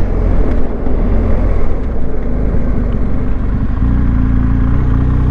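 BMW R1250GS boxer-twin engine running as the motorcycle is ridden through a right turn. Its note is uneven at first, then settles into a steady pitch about four seconds in as the bike gets back on the throttle.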